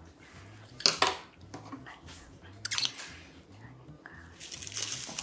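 Wooden spoon knocking and scraping in a small ceramic dish while wild chive soy sauce is spooned onto rice: a few short clatters, the loudest about a second in, and a longer scraping rustle near the end.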